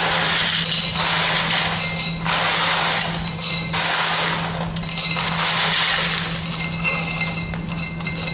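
Crushed-stone aggregate of about 10 mm being poured from a steel pan into a metal cylinder mould, the stones clattering and rattling in repeated bursts of about a second as the pan is tipped. A steady low hum runs underneath.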